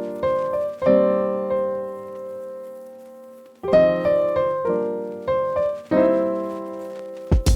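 Background piano music: soft chords struck and left to ring, a long held chord about a second in, then a new run of chords from about three and a half seconds, with a percussive hit near the end.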